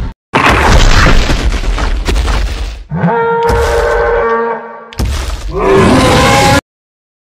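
Dinosaur roar sound effects: a loud roar, then a steadier pitched bellow for about two seconds, then another roar with sliding pitch. Each one cuts off abruptly into a short stretch of dead silence.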